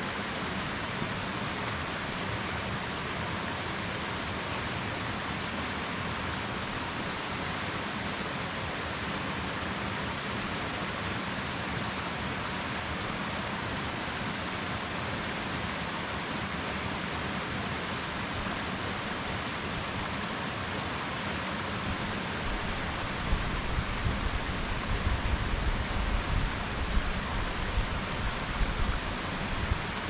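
Waterfall: a steady, even rush of falling water. Near the end, a low, uneven rumbling comes in for several seconds and is the loudest part.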